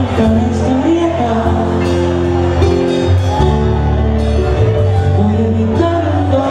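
Live salsa band music with a male lead vocalist singing into a microphone: long held notes over a sustained bass line, the chord changing about three and a half seconds in.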